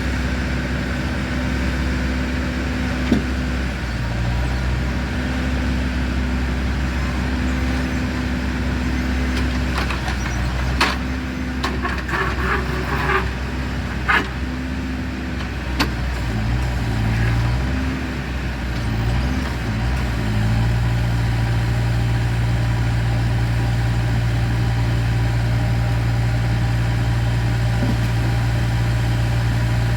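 A vehicle engine idling steadily, with a few sharp knocks about halfway through; the engine's pitch settles into a steadier, slightly louder hum about two-thirds of the way in.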